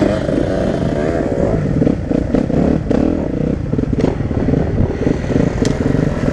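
Motocross bike engine running close up at low revs as the bike pulls away and rolls across grass, its note wavering up and down with the throttle, with a few short knocks from the bike.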